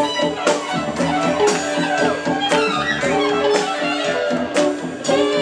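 Live band playing, with electric bass and guitar over a drum kit keeping a steady beat of about two hits a second.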